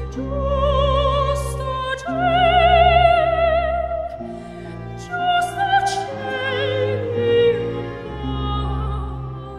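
Operatic singing voice holding long notes with a wide vibrato over orchestral accompaniment, the low held chords changing about every four seconds.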